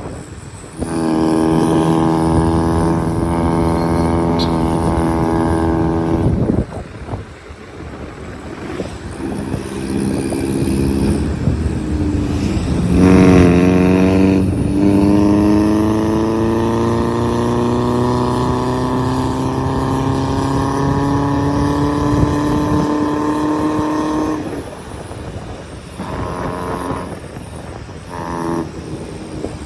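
Motor vehicle engines running on the road: a steady engine note for several seconds, then after a break one whose pitch rises slowly for about nine seconds as it accelerates.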